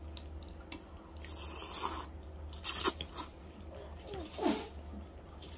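A person slurping and chewing chicken noodles, with a short, loud slurp a little over halfway through.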